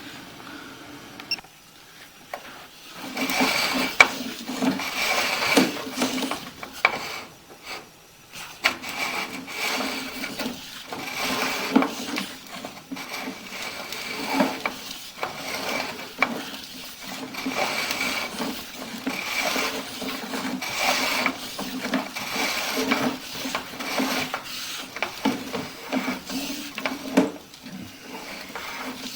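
Sewer inspection camera and its push cable scraping and rubbing along the inside of a sewer pipe as the camera is fed down the line, in uneven strokes.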